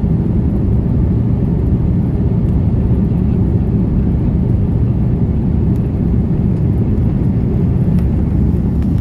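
Cabin noise of a jet airliner in flight, heard from a window seat: a steady, even low rumble.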